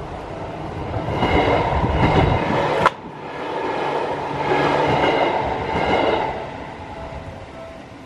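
Seibu New 101 series electric train passing over a level crossing: the wheels rattle and rumble as it swells in and fades out, with a sharp click just under three seconds in. The crossing's warning bell keeps ringing faintly as the train goes by.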